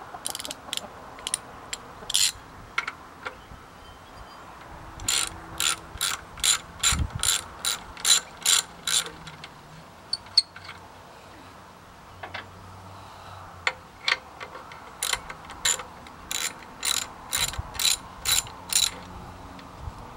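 Hand ratchet wrench clicking as it turns the water pump bolts on a Ford V8, in two runs of steady back-swings at about three a second, with a few single clicks between.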